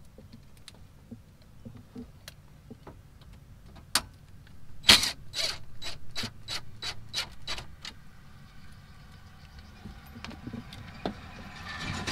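Clicks and knocks of a plastic dash knee-bolster panel and its bolts being fitted, with a run of about ten sharp knocks, some three a second, around the middle. Near the end a cordless impact driver starts to whir as the 7 mm bottom bolts go in.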